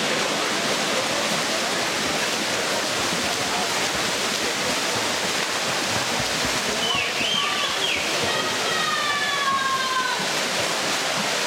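Swimmers splashing through a freestyle race in an indoor pool hall under a steady wash of spectator cheering, with a few high-pitched shouts standing out about seven to ten seconds in.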